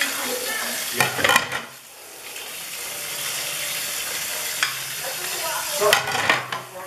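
Kitchen tap running a thin stream into a stainless steel sink while plates are scrubbed by hand, a steady splashing hiss. Plates clatter and rub briefly about a second in and again near the end.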